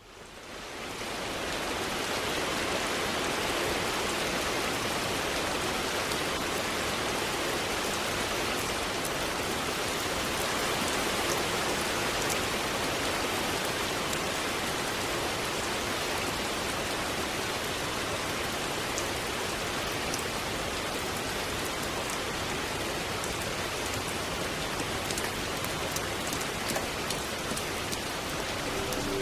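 Steady, heavy rain that fades in over the first second or two and then holds level, with scattered drop ticks standing out near the end.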